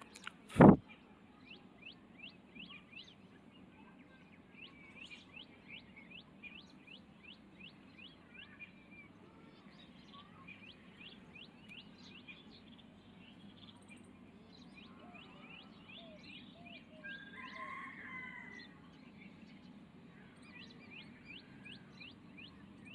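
Birds chirping in quick runs of short high chirps over a low steady hum, with one loud sharp knock about a second in.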